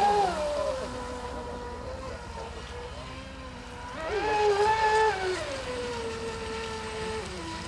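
Radio-controlled speedboat's motor whining as the boat runs across the water. The pitch drops just after the start, rises and gets louder for about a second around the middle, then falls back and drops lower near the end.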